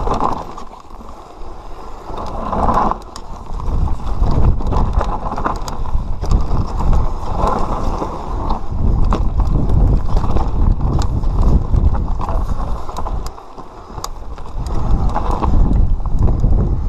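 An enduro mountain bike ridden down a rocky dirt singletrack: an uneven rumble of tyres over dirt and stones, with many sharp knocks and rattles from the bike as it hits rocks. It dips briefly about a second in and again near the end.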